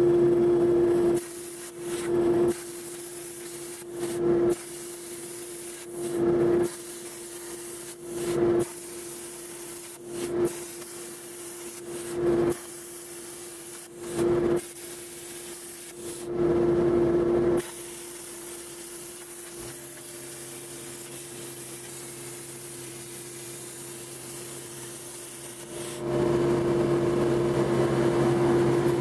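CNC plasma cutter's non-pilot-arc torch firing in repeated loud hisses with a steady hum, each about a second long and coming roughly every two seconds as it pierces and cuts a ring of holes in steel plate. A longer continuous cut starts near the end. A softer hiss of air runs between the cuts.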